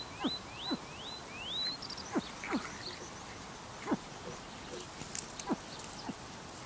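Calls at a western capercaillie nest, from the hen and her newly hatched chicks: a run of about five short, high, rising peeps in the first two seconds, then low calls sliding downward, repeated roughly once a second.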